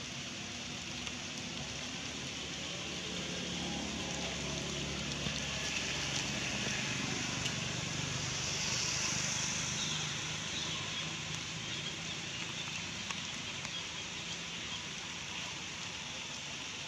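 Steady outdoor background hiss, high-pitched and even, growing louder for a few seconds in the middle.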